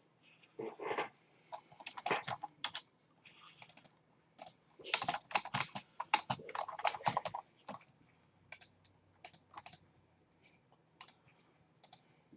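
Typing on a computer keyboard: short runs of keystrokes, densest in the middle, then a few scattered single clicks near the end.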